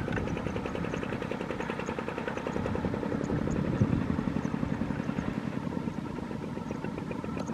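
Single-cylinder diesel engine of a Kubota two-wheel walking tractor running steadily under load as it tows a trailer of rice sacks, a fast, even chugging beat.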